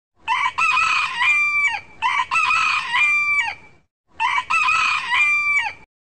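Rooster crowing three times in a row, each cock-a-doodle-doo about a second and a half long, ending on a held high note that drops off.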